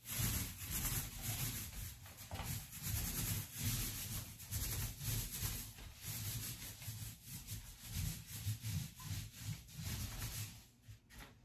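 A paintbrush is being stroked back and forth over painted wood in repeated scratchy strokes. The strokes stop near the end.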